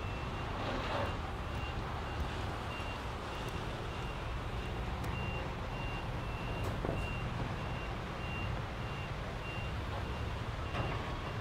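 Truck's reversing alarm beeping, a steady high tone in short evenly spaced beeps, over a steady low rumble of the truck.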